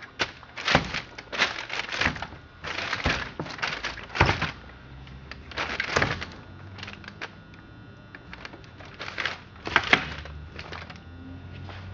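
Knocks, clunks and scraping of a heavy McCulloch Super Pro 125 chainsaw being handled and turned around on a hard surface, with a run of sharp knocks early on and another cluster near the end.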